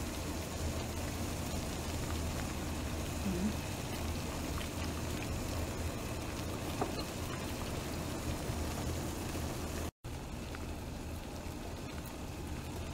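Water at a rolling boil in a large stockpot on the stove, a steady bubbling. The sound drops out for an instant about ten seconds in, then carries on.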